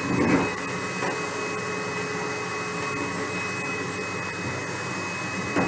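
Vacuum cleaner running steadily, a constant whine over a rushing hiss, a little louder in the first half second.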